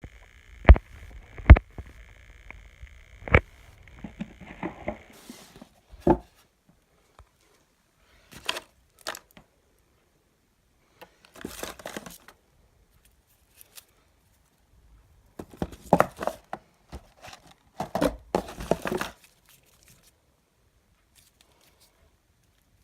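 A parcel of packaging being handled and opened: three sharp knocks in the first few seconds, then several short bursts of tearing and crinkling packaging, the last ending a few seconds before the end.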